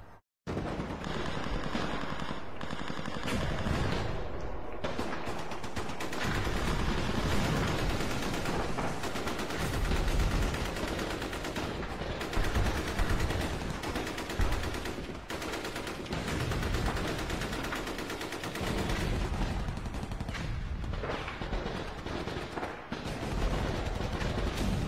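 Sustained automatic gunfire, rapid shots rattling almost without pause, with a few heavier thuds about ten and twelve seconds in. The sound cuts in just after a brief dropout at the very start.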